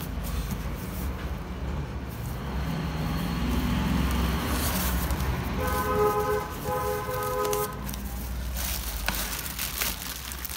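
A vehicle horn sounds two blasts of about a second each halfway through, over a steady low traffic rumble. Cardboard flaps and plastic wrap rustle and crinkle as a box is unpacked, most plainly near the end.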